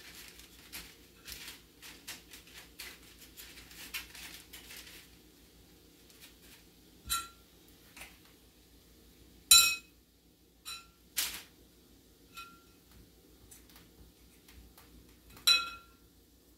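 Soft rustling and tapping as biscuit dough is dropped onto a parchment-lined cookie sheet. Then come a handful of sharp ringing clinks of a utensil against a glass mixing bowl, the loudest about halfway through.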